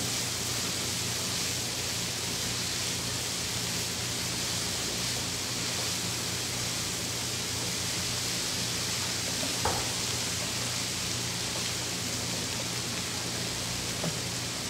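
Diced bacon and sliced onions sizzling in a frying pan, a steady hiss over a faint low hum, with a light spatula tap about ten seconds in.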